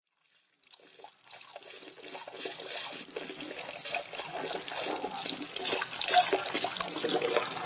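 Water rushing and splashing inside a glass-cylinder vortex fountain as it fills and its whirlpool forms. It swells up from silence over the first few seconds into a steady splashing rush.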